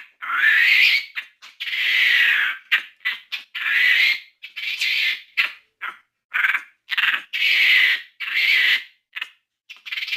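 Capuchin monkey growling: a series of harsh, raspy calls, some about a second long and others short and clipped, with brief pauses between them.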